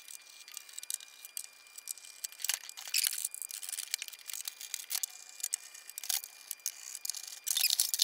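Irregular light clicks, taps and scrapes of a plastic fog machine case and its small parts being handled and unscrewed as it is taken apart, with a louder cluster of scraping near the end.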